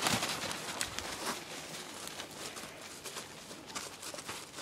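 Irregular rustling and crunching of footsteps through dry fallen leaves.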